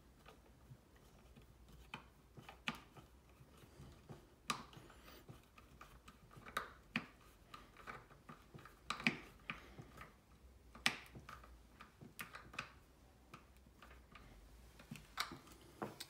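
Crosshead screwdriver turned by hand, driving a screw through a wooden side panel into the shelf: faint, irregular light clicks and ticks as the screw bites and the wooden parts shift in the hands.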